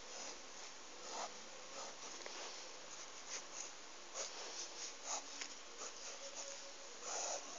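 Black felt-tip marker drawing short strokes on lined notebook paper: a series of brief, faint scrapes over a steady hiss.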